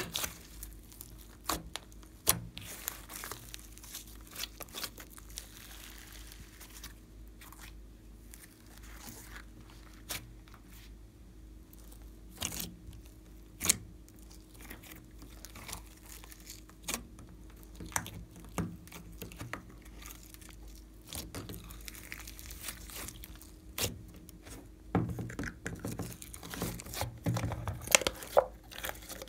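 Glossy slime being squeezed and stretched by hand, giving scattered sharp pops and crackles with soft squishing between them; the pops come thicker and louder over the last few seconds.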